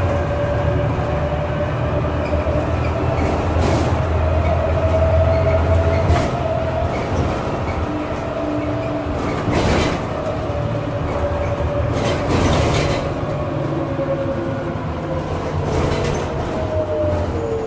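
Irisbus Citelis 12 city bus with an Iveco Cursor 8 engine and Voith automatic gearbox under way, heard from inside the passenger cabin: a steady low engine drone with a drivetrain whine that rises slightly and then falls away near the end. Several sharp knocks from the body break through it.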